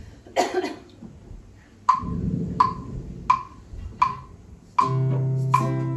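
Five even wooden taps about 0.7 s apart, like a count-in, then a strummed guitar chord starts near the end.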